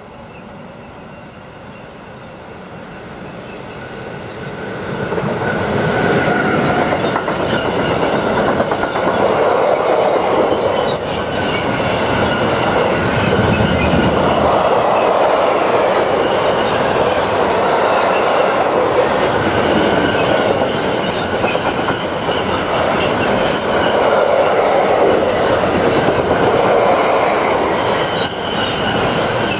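A train approaching, growing louder over the first five seconds or so, then running past close by for the rest: a steady rumble of wheels on rail with thin high-pitched tones above it.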